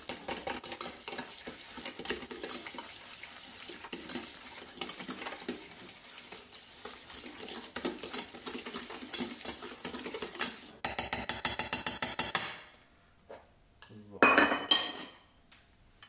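Hand stirring of creamed margarine, sugar, vanilla and yogurt in a stainless steel bowl: rapid steady strokes, the utensil scraping and clicking against the metal. The strokes get louder for a moment around eleven seconds in, then stop, followed by one brief louder sound.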